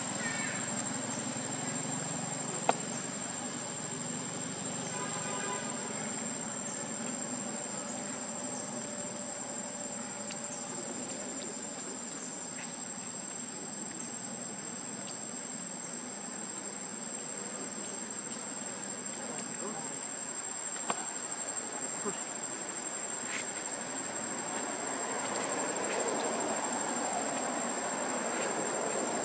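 Insects keeping up a steady, high-pitched drone. One sharp click sounds a little under three seconds in.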